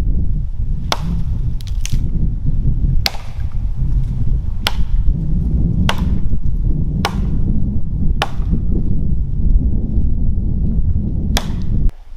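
Wood being struck with about nine sharp blows, roughly one a second, with a longer pause before the last. Underneath is a steady low rumble that drops away suddenly near the end.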